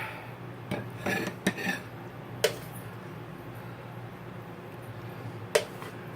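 Serving utensil clinking against a plate and pan while pasta is plated: a few light clicks in the first two seconds, then two sharper clinks, about two and a half and five and a half seconds in, over a low steady hum.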